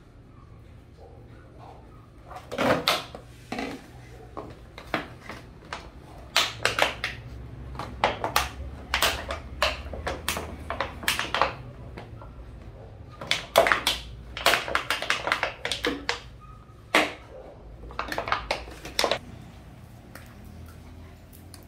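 A dog chewing and crunching an empty plastic drink bottle: repeated sharp crackles and crinkles of the plastic, coming in clusters from about two seconds in until shortly before the end.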